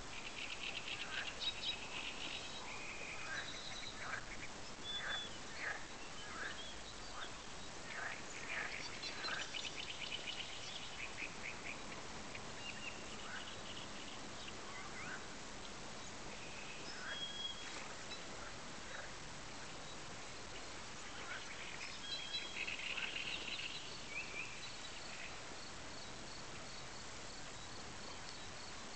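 Wild birds calling over a steady outdoor hiss: short chirping and chattering notes, busiest in the first ten seconds or so and again about 22 seconds in, with a run of quick high ticking notes near the end.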